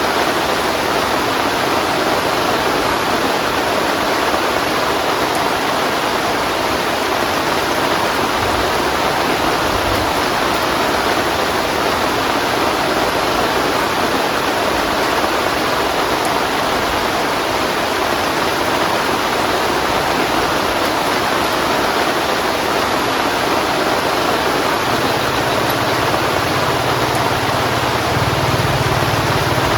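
Heavy rain falling steadily, an even hiss. About five seconds before the end, a low steady hum joins in.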